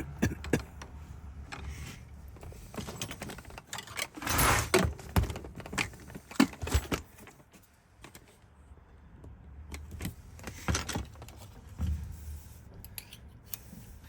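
Small metal clicks, taps and rattles of a Ford lock cylinder being pried apart with hand tools, with a louder scraping rattle about four seconds in.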